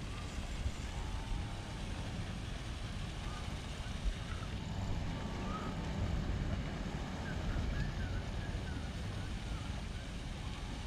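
A steady low rumble of outdoor background noise, with faint wavering chirps over it from about halfway through.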